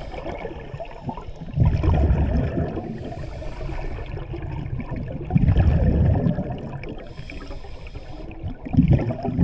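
Underwater recording of scuba breathing through a regulator: three rumbling bursts of exhaled bubbles, about three and a half seconds apart, with a fainter hiss of inhalation between them.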